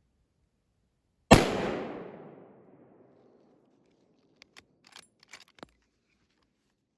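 A single rifle shot close by, a sharp crack whose echo trails away over about a second and a half. About three seconds later comes a quick run of small sharp clicks and knocks.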